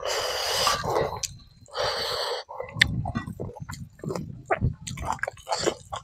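Close-miked mouth sounds of a man eating by hand: two loud breathy hisses in the first two and a half seconds, then wet chewing with quick smacks and clicks.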